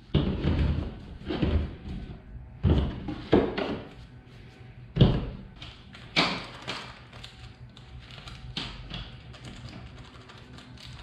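Background music with irregular taps and thuds from handling small parts on a worktable: unwrapping a shop towel, rustling a plastic parts bag and setting down seals and crush washers, the loudest knocks in the first half.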